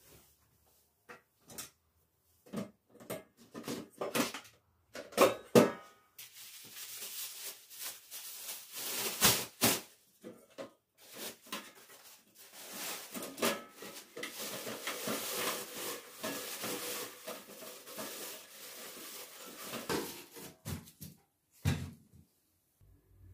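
Household objects being handled: a run of separate knocks and clinks, then a long stretch of steady rushing noise with clattering mixed in, and a final knock near the end.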